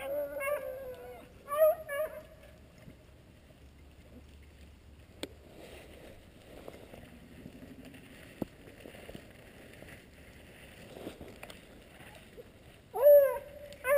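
Beagles baying on a rabbit's trail: a run of drawn-out bawls in the first two seconds, then a quiet stretch with faint rustling and two short clicks, and the baying starts again about a second before the end.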